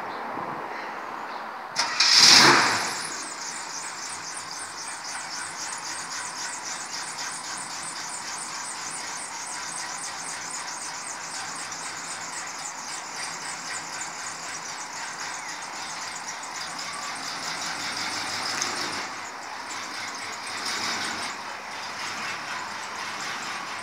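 1951 Ford F1 pickup's V8 starting with a short loud burst about two seconds in, then idling steadily with a fast, even pulse.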